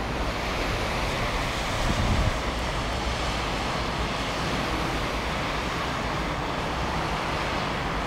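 Steady traffic noise from a busy motorway: cars and lorries passing on slushy lanes, with a slight swell about two seconds in as a vehicle goes by, and wind rumbling on the microphone.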